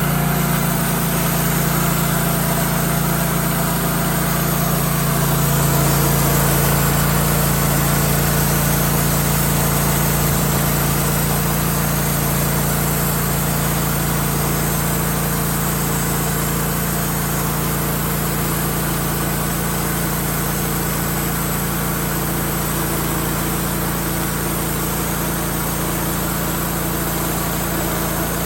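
An engine running steadily at a constant speed, swelling slightly about five seconds in and then easing back.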